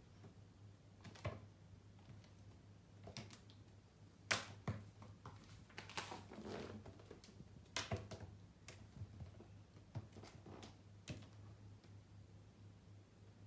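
A kitten pouncing and scrambling after a wand toy on a wooden floor: scattered sharp taps and scuffs of paws and the toy striking the boards, the loudest about four seconds in, over a low steady hum.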